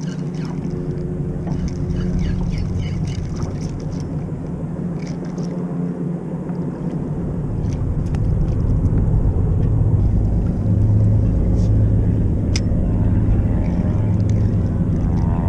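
A boat engine drones steadily on the water and grows louder about halfway through, with scattered faint ticks and splashes over it.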